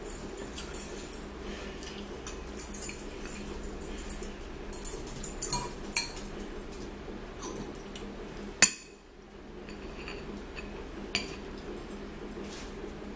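Metal forks and spoons clinking and scraping against ceramic bowls while eating, in scattered short clicks, with one sharp louder clink about eight and a half seconds in.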